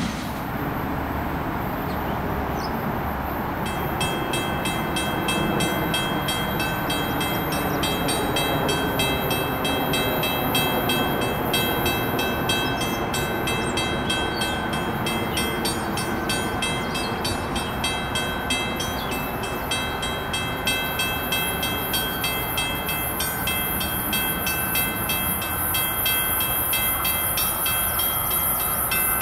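Railroad grade-crossing warning bell starts about three and a half seconds in and keeps up a steady, even ring, the signal that a train is approaching the crossing.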